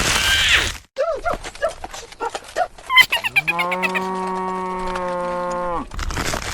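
A cow mooing: one long call that rises at first and then holds for about three seconds, beginning about halfway in. Before it comes a quick run of short squeaky chirps.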